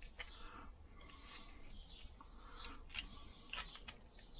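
Faint small clicks and taps, several close together about three seconds in: a brake lever being fitted back onto a Nissin hydraulic master cylinder and its pivot bolt put in by hand.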